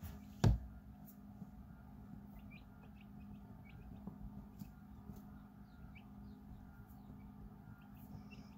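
Newly hatched quail chicks peeping softly: short, high, scattered peeps, with a single sharp thump about half a second in. A steady low hum runs underneath.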